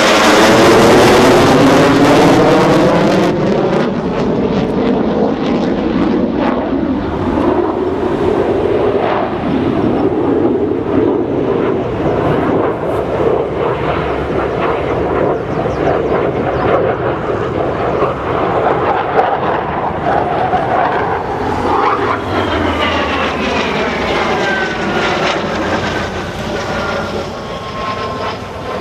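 AIDC F-CK-1A Ching-kuo fighter's twin afterburning turbofans passing low overhead, loudest in the first few seconds with the pitch sweeping down. After that comes a steady, heavy jet rumble as it flies its manoeuvres, with falling whine tones in the last few seconds.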